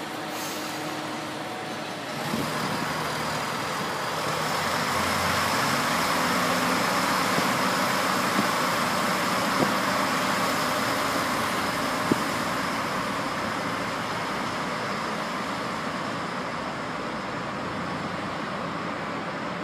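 Diesel railcar train (KTR 8000 series) pulling away from the platform: its engines come up in power about two seconds in and run loudest through the middle, then fade as the train moves off, with a few sharp clanks from the wheels.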